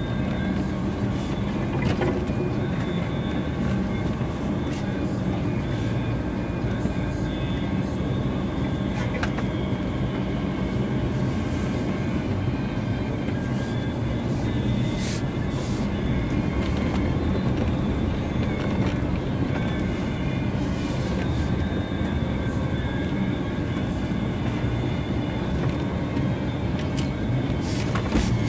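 Vehicle driving on a rough forest track: a steady low rumble with occasional light knocks and rattles.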